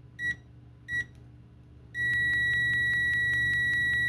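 UYIGAO UA8888 multimeter's continuity beeper: two short beeps, then from about two seconds in a steady high-pitched beep that sounds continuously because the test leads are shorted. It registers 72.4 dBA on a sound level meter.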